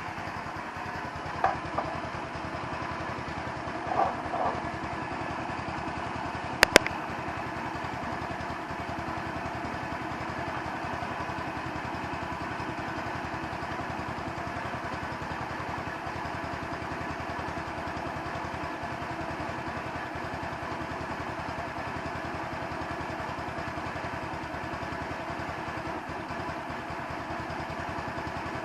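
150cc Chinese scooter's single-cylinder four-stroke engine idling steadily, which the owner suspects has its idle mixture set wrong. There is a sharp double click about seven seconds in.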